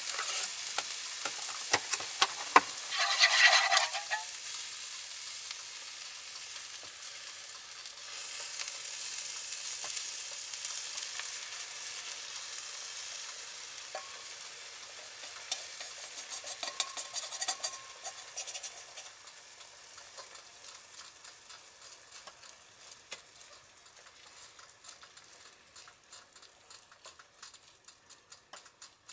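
Food sizzling steadily on an electric hot plate, the sizzle fading gradually toward the end. A short louder rustle comes about three seconds in, and light taps and clicks fall in the middle.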